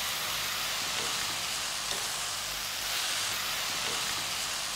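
A stir-fry of chicken, shredded vegetables and noodles sizzling steadily in a wok while it is stirred with a wooden spatula.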